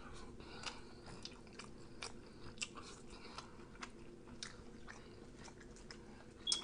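Close-up chewing of food, with soft, irregular wet mouth clicks and smacks.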